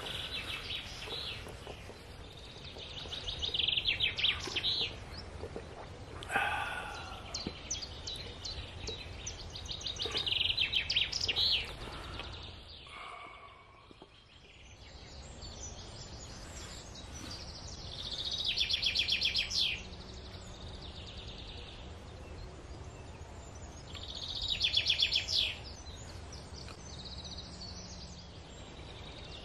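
Songbirds singing: short high trilled phrases, about a second or two each, repeat every few seconds over a low steady background noise.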